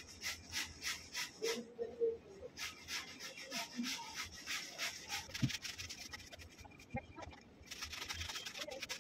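Cucumber being grated on a metal box grater: rhythmic scraping strokes, about three to four a second, easing off for a couple of seconds past the middle and then picking up again.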